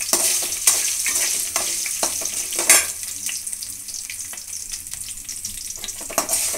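Small potato cubes sizzling in hot oil with mustard seeds and urad dal, a steady frying hiss. A metal slotted spoon stirs them, giving a few sharp clicks against the pan; the loudest comes about two and a half seconds in.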